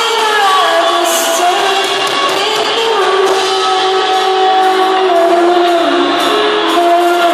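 Live rock band playing: a female lead vocalist sings long held notes over electric guitars and drums.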